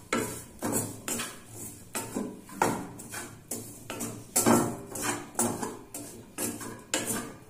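Wooden spatula scraping and knocking against a stainless steel kadai as a dry vegetable filling is stirred and turned, about two strokes a second.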